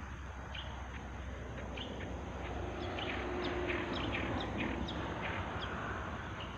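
Birds chirping: many short, high, falling chirps repeated throughout, thickest in the middle, over a steady background hiss that swells a little around the middle.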